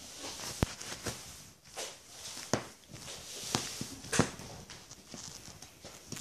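A dog scrabbling at and chewing a fuzzy plush toy on a fleece dog bed: rustling and scratching of fabric, with a few sharp clicks or knocks.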